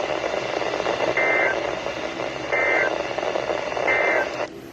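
Three short two-tone digital data bursts from a NOAA Weather Radio broadcast, about 1.3 seconds apart: the EAS end-of-message code (NNNN) that closes the weekly alert test. They sound over a steady radio static hiss, which drops away sharply near the end.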